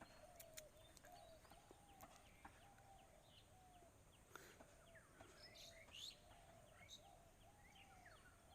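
Faint birdsong: a string of short, repeated chirping notes, about two a second, with a few higher chirps and some faint clicks.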